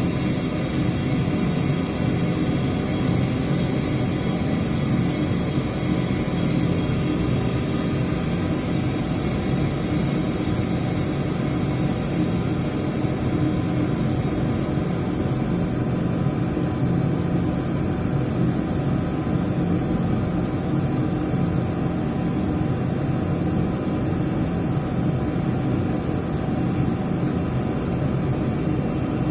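Miura steam boiler running: a steady, loud mechanical drone with a few constant hum tones, unchanging throughout.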